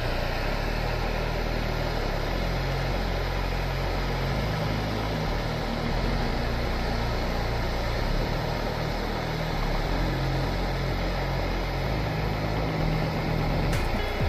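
Handheld gas torch burning with a steady rushing hiss, its flame playing on a plastic toy truck that catches fire.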